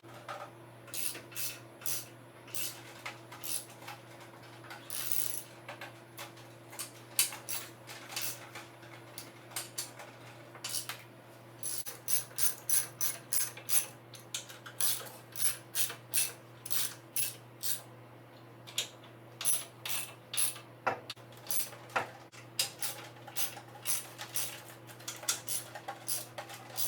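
Steel wrench clicking and clinking on bolts as the track-frame clamps on a John Deere 40C crawler's undercarriage are tightened down: a string of short, sharp metal clicks, often two or three a second, over a steady low hum.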